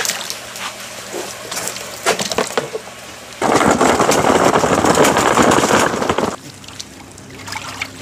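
Water pouring out in a heavy gush for about three seconds, starting about three and a half seconds in and cutting off suddenly. Before it come a few light splashes and knocks.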